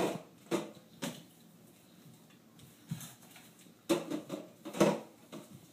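Knocks and clunks of items being set down inside a refrigerator: three quick ones at the start, one about three seconds in, and a louder cluster around four to five seconds in.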